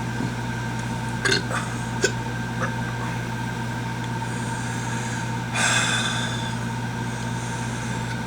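A man breathing out hard through his mouth, a hissing rush of air about five and a half seconds in that slowly fades, as he reacts to a mouth burning from a habanero. A few small mouth clicks come earlier, over a steady hum in the room.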